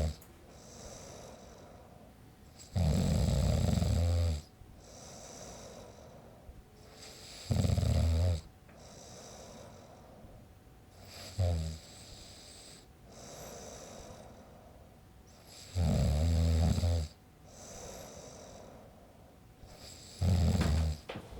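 A man snoring: five loud, low snores about every four to five seconds, one of them brief, with quieter breathing between them.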